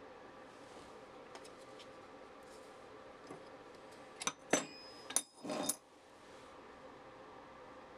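A few sharp metallic clinks, one ringing briefly, and a short scrape about four to six seconds in: a steel rule being handled on and lifted off the steel table of a bench-grinder grinding rest.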